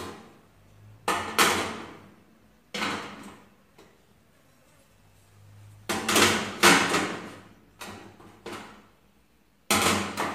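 Wire pan grates being set down onto a gas stove's stainless steel top: a series of sharp metallic clanks and rattles, about ten of them with quiet gaps between, the loudest cluster about six to seven seconds in.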